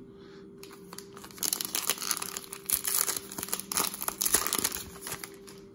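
A 2020 Topps Gypsy Queen trading-card pack wrapper being torn open and peeled back: a dense run of crinkling and tearing that starts about a second and a half in and stops shortly before the end.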